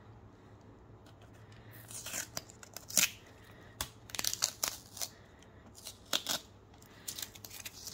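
Adhesive tape being picked at with fingernails and peeled off a rigid plastic top loader card holder, in a series of short ripping rasps that start about two seconds in, the loudest about a second later.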